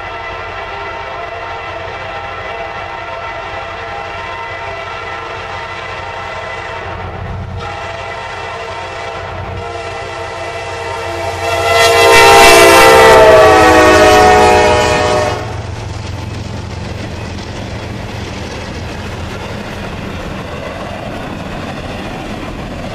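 CSX diesel freight locomotive's air horn sounding a long signal with two short breaks. It is loudest and falls in pitch as the locomotive passes about twelve seconds in, then stops. After that the double-stack container cars roll by with a steady rumble and wheel clatter.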